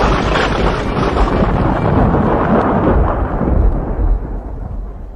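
Thunder sound effect: a loud rolling rumble that fades away about four seconds in.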